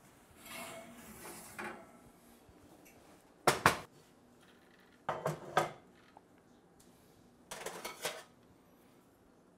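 Heavy cast iron Dutch oven lid clanking against the pot and stovetop as it is lifted off and set down: three short bouts of sharp metal knocks, the loudest about three and a half seconds in.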